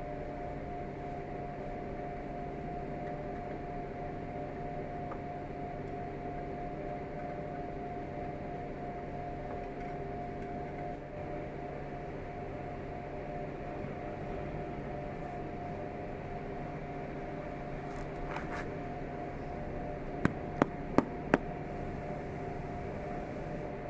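A steady mechanical hum holding several fixed tones, with four sharp clicks in quick succession near the end.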